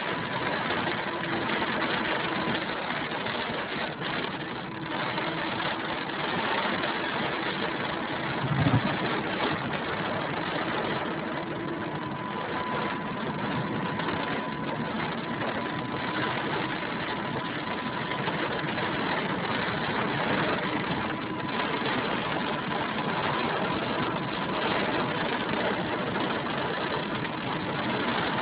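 Steady road noise inside a car driving through heavy rain: the engine running, tyres hissing on the wet road and rain on the windscreen, with a single thump about nine seconds in.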